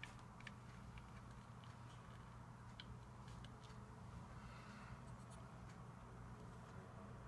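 Near silence: room tone with a steady low hum and faint, irregular small clicks.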